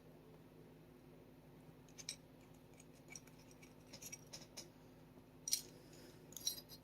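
Faint, irregular small metallic clicks and taps of a thin screwdriver bit working the sear spring and small steel parts of a Sig Sauer P365 into position. The clicks come scattered, bunch up in the second half, and the sharpest is a little past the middle. A steady low hum runs under them.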